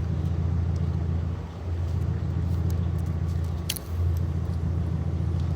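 Wind buffeting the microphone: a loud, steady low rumble that dips briefly a few times. A single sharp click about two-thirds of the way through.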